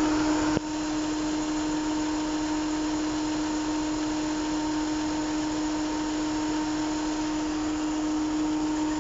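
Chevy Captiva's turbocharged engine idling with a steady whine, running rough. The mechanic diagnoses it as misfiring and shaking, with perhaps only two or three cylinders working. A short click and drop in level come about half a second in.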